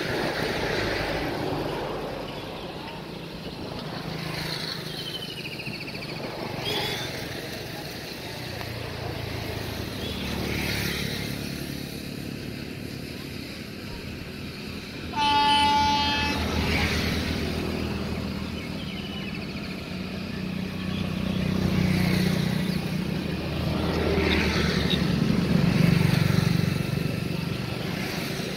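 A single short blast of an electric locomotive's horn, one pitch that starts sharply about halfway through and dies away within a second or two. It sits over a low rumble of the approaching freight train that swells louder near the end.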